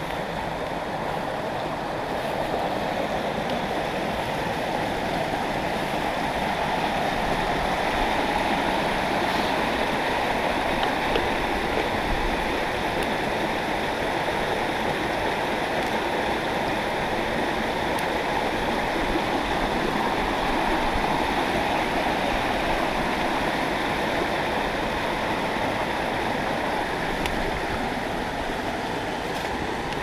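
Small rocky stream flowing over stones and little cascades: a steady rush of water.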